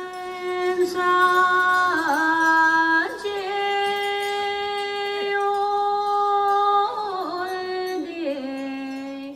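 A solo voice sings a slow devotional song in long held notes, bending through short wavering turns as it moves between them. It breaks off for a breath at the very end.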